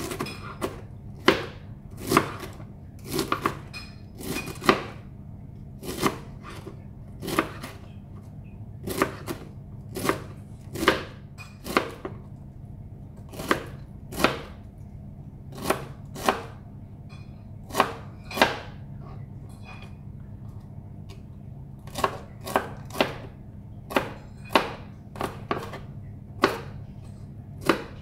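Chef's knife chopping white cabbage into small cubes on a plastic cutting board: sharp, uneven knocks of the blade on the board about once or twice a second, with a pause of a few seconds about two-thirds of the way through.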